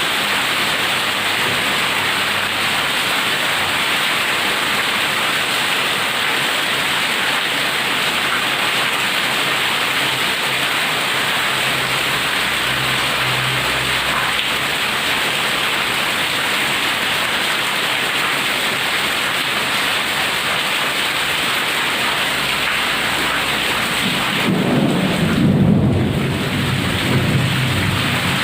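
Heavy rain pouring steadily in a thunderstorm. A low roll of thunder rumbles for about three seconds near the end.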